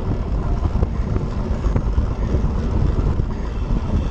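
Steady low wind rumble buffeting the microphone of a handlebar-mounted GoPro on a track bike ridden at racing speed, mixed with the bike's tyres rolling on the wooden velodrome boards.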